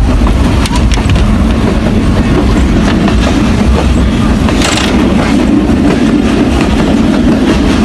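Passenger train running at speed, heard from inside the carriage: a steady rumble of the wheels on the rails with scattered small clicks from the track, and a short hiss a little past halfway.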